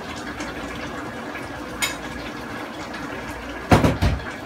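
Fish and vegetable sauce simmering in a frying pan, a steady bubbling hiss, with two sharp knocks close together near the end, the loudest sounds.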